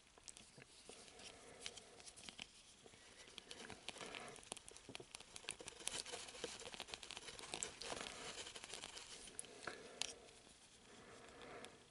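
Hard plastic model-kit parts being handled and pressed together: fingers rubbing and scraping on the plastic, with many small clicks as the head piece is worked onto the body. The handling is busiest in the middle, with a sharper click about ten seconds in.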